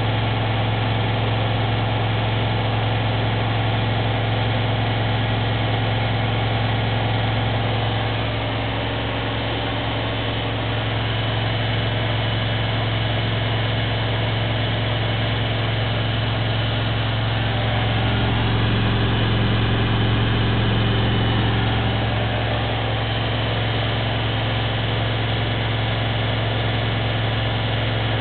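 Bauknecht front-loading washing machine on its spin cycle set to 1400 rpm: a steady, loud hum with a strong low drone and vibration. It eases slightly a third of the way in and swells a little about two-thirds of the way through.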